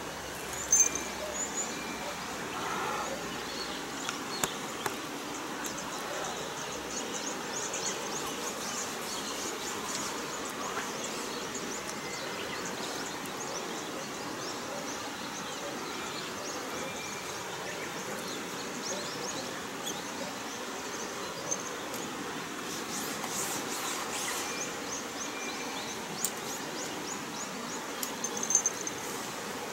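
Outdoor ambience: a steady hiss with short, high chirping calls scattered throughout, and a few sharp ticks about a second in and near the end.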